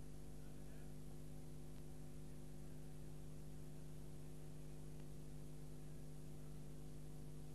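Faint, steady electrical hum with a stack of even overtones, unchanging throughout; no other sound.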